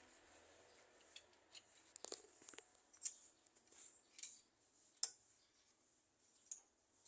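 Scattered light clicks and taps, as of hand tools or small metal parts being handled during engine work, with the sharpest click about five seconds in.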